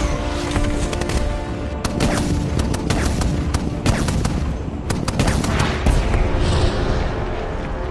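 Film battle sound mix: a barrage of shell explosions and rapid gunfire from an AC-130 gunship's bombardment, with a constant low rumble, under film score music with sustained tones.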